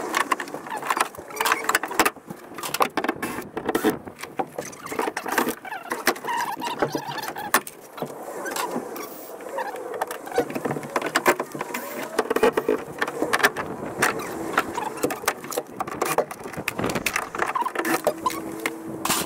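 Busy hand work on a van's stripped interior: repeated clicks, knocks and rattles of trim panels and tools, with short squeaks among them.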